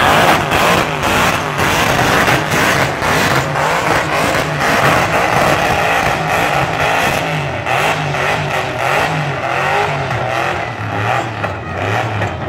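Rat-rod truck's engine revving hard through a burnout, its pitch rising and falling again and again, over the loud hiss of the spinning rear tyres.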